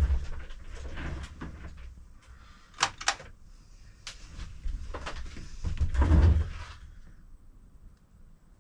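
Knocks, clicks and rubbing from handling plastic laptop parts during reassembly, with a heavy thud near the start, two sharp clicks about three seconds in, and another heavy thud with rubbing around six seconds in.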